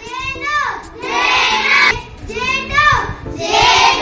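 Children's voices chanting or sing-song reciting in chorus, four short phrases about a second apart with the pitch falling at the end of each, over soft background music.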